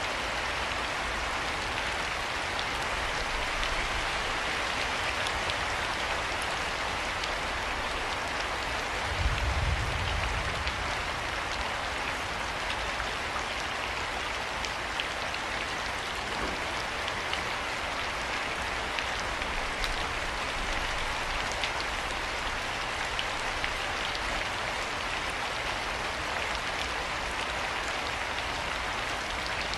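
Steady rain falling, an even hiss with scattered individual drop ticks. A brief low rumble about nine seconds in.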